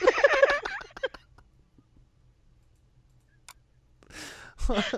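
Vocal sound-effect imitation by mouth: warbling pitched sounds mixed with clicks for about a second. Then a near-quiet pause with one faint click, a breathy hiss about four seconds in, and more warbling vocal sounds near the end.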